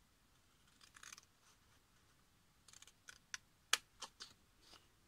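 Small scissors snipping into scored cardstock: a faint brief rasp about a second in, then a run of short sharp snips and clicks, one much louder than the rest.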